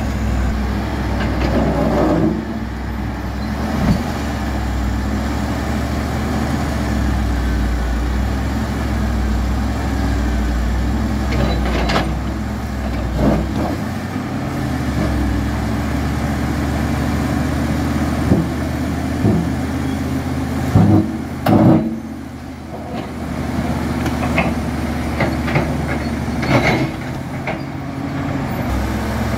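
Diesel engines of a Caterpillar D7 bulldozer and a crawler excavator running steadily under load as they push against a large boulder. Short knocks and scrapes of the steel bucket and blade on rock break in every few seconds, the loudest two close together about two-thirds of the way through.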